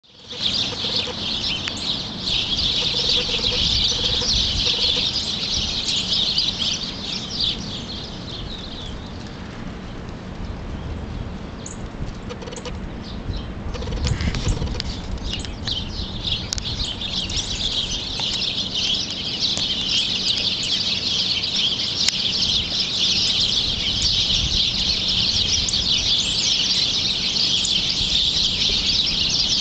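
Many small birds chirping at once in a dense, continuous chatter. It thins out for a few seconds around the middle, then builds back up.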